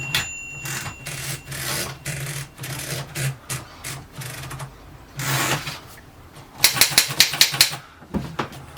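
Mechanism of a 1930 Seidel & Naumann Erika 5 portable typewriter clicking as it is worked by hand: scattered clicks and a short rustle of the carriage moving, then a rapid run of sharp clicks, about eight a second, near the end.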